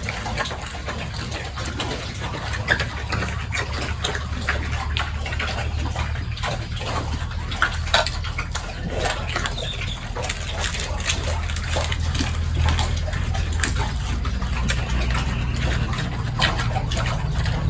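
Pigs eating wet rice feed: many quick, irregular slurps and chomps, with a steady low hum underneath.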